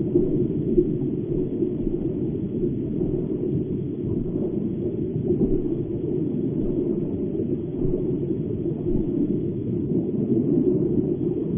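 A steady, low, muffled rumble that goes on evenly, with no separate knocks or calls.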